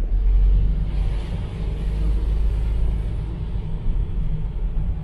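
Steady low rumble of road and engine noise inside the cabin of a moving vehicle.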